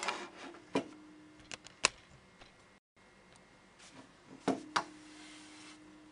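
Handling knocks and clicks as the cushion is worked off an aluminium laptop stand: several sharp knocks at irregular moments, two of them followed by a low ring that lingers about a second, and a short scraping rub near the end.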